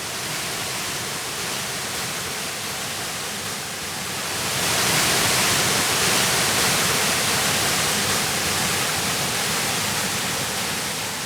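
Waterfall: a steady rush of falling water that grows louder about four and a half seconds in.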